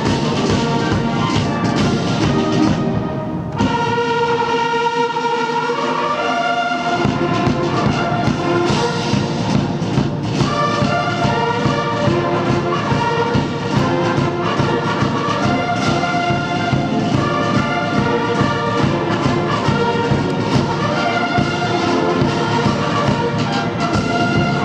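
Massed military band of bugles, brass and percussion playing. About three and a half seconds in, the low brass and drums drop out and higher brass carries on alone for a few seconds, then the full band comes back in.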